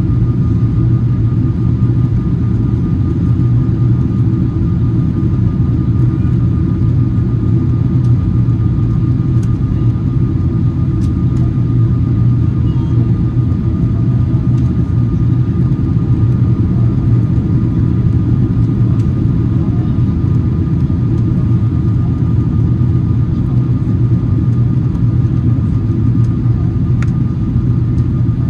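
Steady low rumble of cabin noise inside a Boeing 777-300ER on approach: its GE90 engines and the airflow around the fuselage, with a thin, steady high whine above the rumble.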